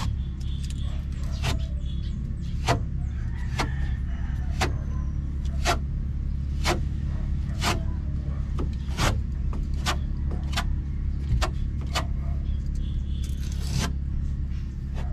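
A steady low motor hum with sharp taps or knocks about once a second.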